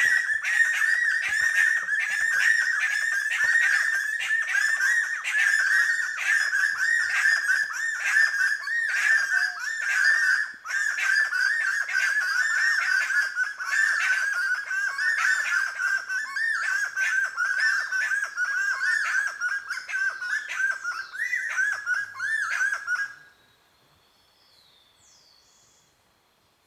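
Black-fronted wood-quails singing: a loud, fast series of repeated notes kept up for over twenty seconds, then stopping abruptly near the end.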